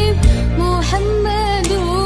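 Shalawat, Islamic devotional music: a melody line gliding between notes over a steady low bass accompaniment.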